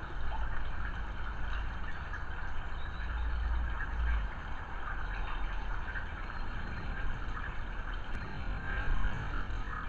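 Steady trickle of spring water over a constant low rumble.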